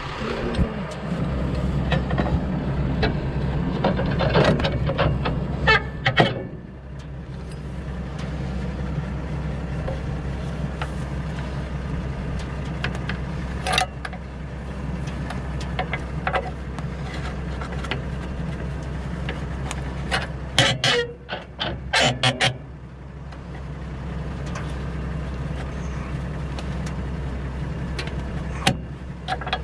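Case IH Puma 165 tractor engine running, then dropping to a quieter steady idle about six seconds in. Over the idle come sharp metal clicks and clanks as a blade-change lever pries at the knife holders of the Pöttinger Novacat disc mower: single strikes around the middle, then a quick cluster, and more near the end.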